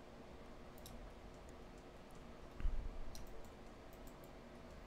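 Faint computer mouse clicks, a few scattered ones, over a low steady room hum, with one louder soft knock a little past halfway.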